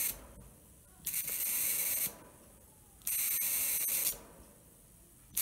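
High-voltage rig hissing in bursts of high-pitched hiss. Each burst is about a second long, switches on and off sharply, and comes roughly every two seconds, with quieter gaps between.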